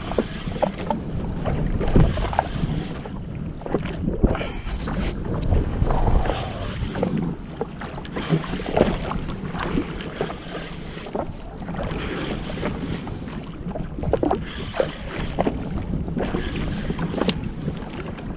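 Water splashing and slapping against a jet ski on open sea, with wind buffeting the microphone.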